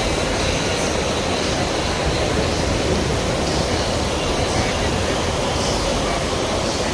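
Steady rush of moving water, an even noise without breaks.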